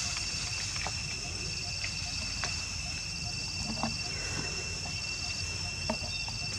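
Steady insect chorus, two unbroken high-pitched drones with a faster pulsing trill among them, over a low rumble, with a few faint clicks.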